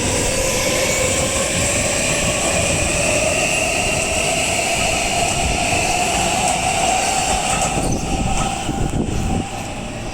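Electric commuter train in a station, its motors whining with a slowly rising pitch as it gathers speed, over the rumble of wheels on the rails.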